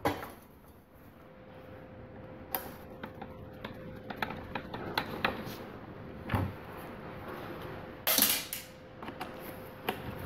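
Clicks, knocks and light metallic clanks of hand tools and parts being handled during motorcycle disassembly, with a short louder hissing or rasping burst about eight seconds in, over a faint steady hum.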